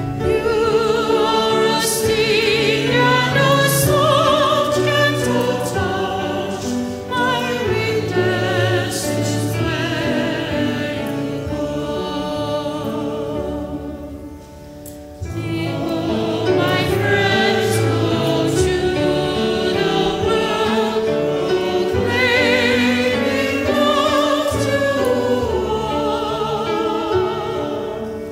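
Church choir singing a hymn with piano accompaniment, the voices held with vibrato. About halfway through the music drops briefly, then the refrain begins.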